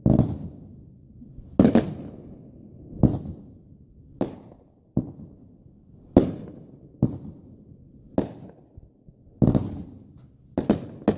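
Consumer aerial fireworks bursting in a steady series, about ten sharp booms roughly a second apart, each trailing off with an echo, with two bangs close together near the end.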